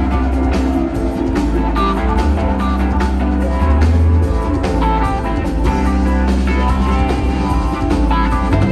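Live rock band playing an instrumental passage: guitar lines over sustained bass notes and a steady drum kit beat.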